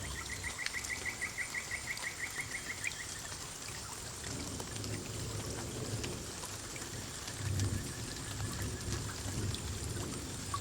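Water from a small tabletop waterfall decoration trickling and pouring steadily. A fast run of high chirps, about five a second, sounds over it for the first three seconds, and a fainter run comes later.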